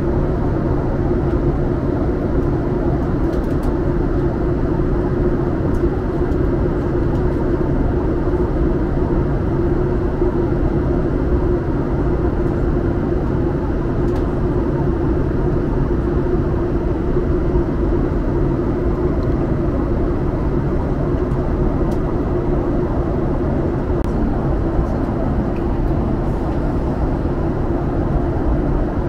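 Steady cabin noise inside a Boeing 737 MAX 8 airliner in flight: an unbroken low drone of engines and airflow with a steady hum running through it.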